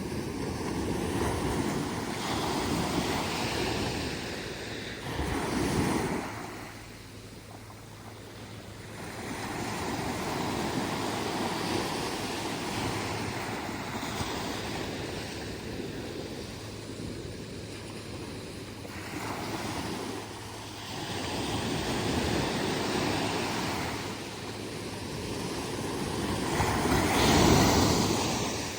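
Atlantic surf breaking on a sandy beach, several waves in turn swelling and washing out, the loudest break near the end.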